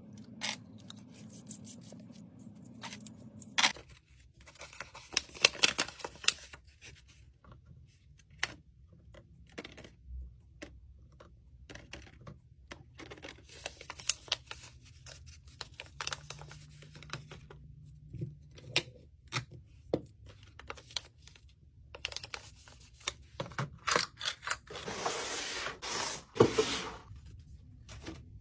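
Packing sounds made by hand: sharp clicks and taps of a metal straw and its plastic cases and carabiner clips being handled, rustling of a kraft paper sleeve, and near the end a longer crinkling of tissue paper.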